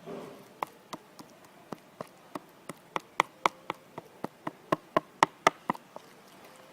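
Glue and shoe silicone being stirred in a small bowl for slime: irregular sharp clicks and taps of the stirring utensil, about three a second, growing louder about halfway through.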